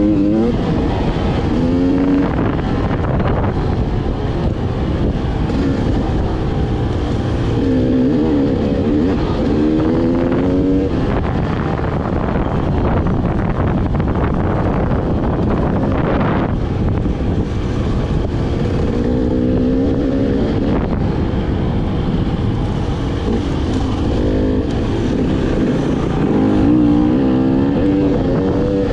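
Dirt bike engine running as the bike is ridden over a rough dirt track, its pitch rising and falling repeatedly as the throttle is opened and eased off.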